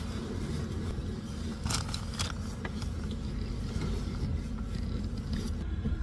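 Eberspächer D2L diesel parking heater running with a steady low drone, keeping the parked car warm with the engine off. A couple of brief rustles come about two seconds in.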